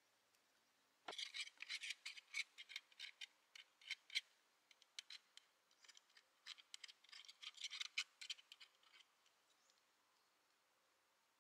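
Faint, quick, irregular scratching strokes, like small hand work on a part. They start suddenly about a second in and die away two to three seconds before the end.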